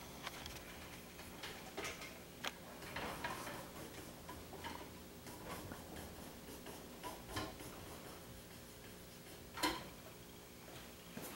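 Cleaning rod being pushed through a 30-06 rifle barrel with a patch, giving faint scattered clicks and light scrapes, and a louder knock near the end as the jag and patch push out of the muzzle.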